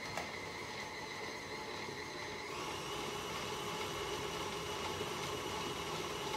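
Electric stand mixer running steadily, beating cookie dough in its metal bowl. About two and a half seconds in, its whine steps up in pitch and gets a little louder as the speed is raised.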